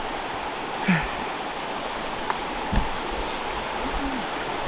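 Fast-flowing river water rushing steadily, with a few brief faint vocal sounds over it.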